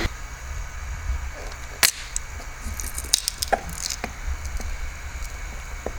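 Scattered sharp clicks and light knocks from small hard objects being handled, the loudest about two seconds in, over a low steady hum.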